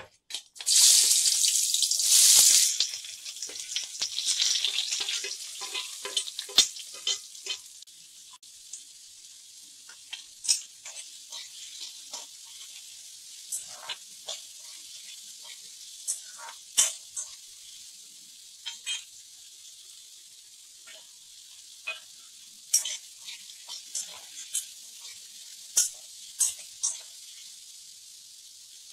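Sliced onions hit hot oil in a hammered metal kadai and sizzle loudly for the first two seconds or so. The frying then settles to a quieter steady sizzle, while a metal spatula stirring the onions knocks and scrapes against the pan in scattered sharp clicks.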